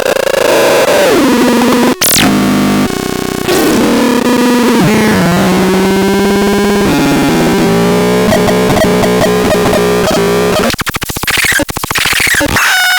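Harsh, buzzy electronic synthesizer tones from the BEXDEX being demonstrated. A pitch glides down, then held notes step between pitches, and near the end the sound breaks into a fast, choppy stutter.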